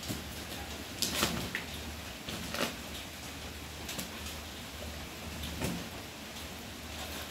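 Short scrapes and knocks, four or five of them with the biggest cluster about a second in, as cats scuffle against an open umbrella's fabric and frame on a tiled floor, over a low steady hum.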